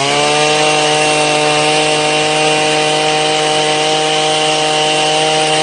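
Homelite 33cc two-stroke multi-tool engine running at full throttle, held at a steady high rev with a buzzing pitch.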